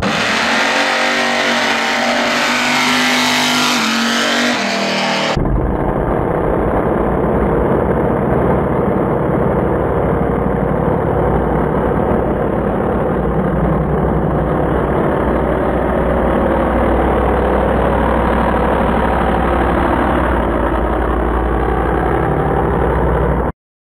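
Vintage cab-forward pickup wheelstander's drag-race engine at full throttle as it pulls a wheelstand down the strip. About five seconds in, the sound cuts abruptly from a harsh, high-pitched roar to a steadier, deeper engine note, which stops suddenly near the end.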